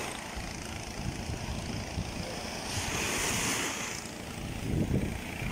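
Surf washing on the shore, with a wave surging up about three seconds in, and wind buffeting the microphone.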